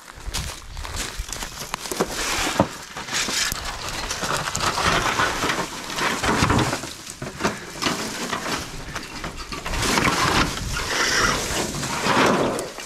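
Irregular rustling and crunching of dry brush, leaf litter and tangled wire mesh underfoot and under a snake hook, in uneven bursts with a low rumble beneath.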